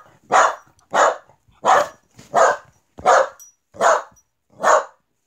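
Dog-like barking: seven short, evenly spaced barks, a little over one a second.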